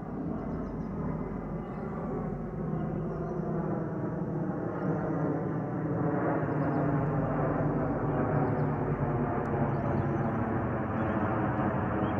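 Boeing 717's two Rolls-Royce BR715 turbofan engines, a steady jet roar from an airliner passing low overhead. It grows louder over the first half and then holds.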